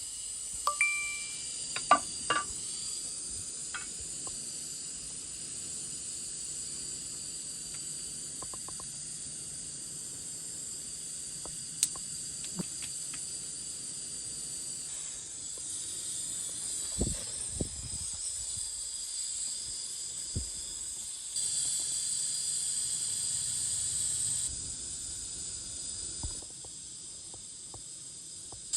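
Oil sizzling steadily in a frying pan, with a few sharp clicks and knocks, mostly in the first few seconds.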